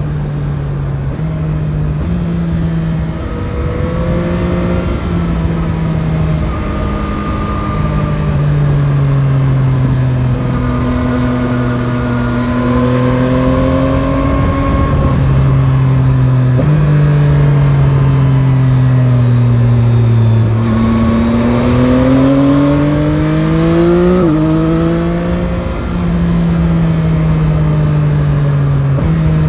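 Yamaha Tracer 9 GT's CP3 inline three-cylinder engine under way, its pitch climbing and falling as the bike accelerates and slows through bends, with several sudden jumps in engine speed at gear changes. Wind and road rush run underneath.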